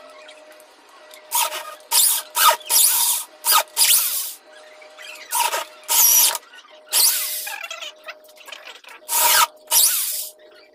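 Corded electric drill boring holes into a mahogany gunstock blank: a steady motor whine with about a dozen short, harsh cutting bursts as the bit is pushed into the wood.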